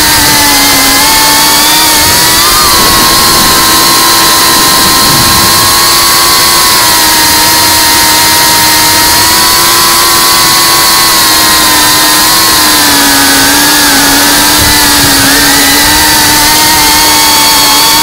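FPV quadcopter's motors and propellers whining steadily, the pitch wavering slightly as the throttle changes, over a heavy rushing hiss.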